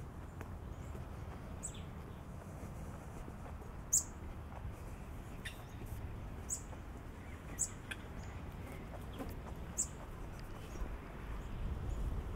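A bird chirping repeatedly: short, high single chirps every second or two, over a steady low rumble of outdoor ambience.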